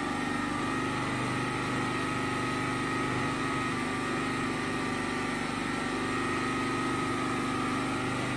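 Generator engine running steadily: a constant, even engine drone.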